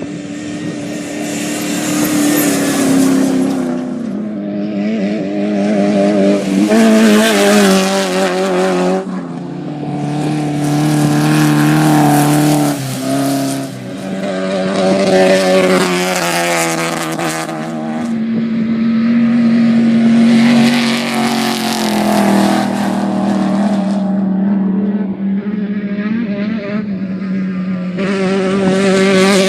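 Off-road race vehicle's engine running hard, its pitch climbing and dropping every few seconds as the throttle is worked, with a wavering note and a steady rushing hiss over it.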